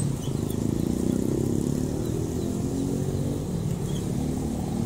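Road traffic of passing motorcycles, their small engines running steadily.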